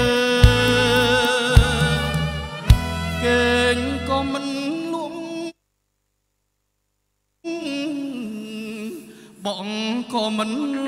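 A song playing: a singer's wavering voice over bass notes and a few sharp drum hits. It cuts off abruptly about halfway through, falls silent for about two seconds, then the singing resumes.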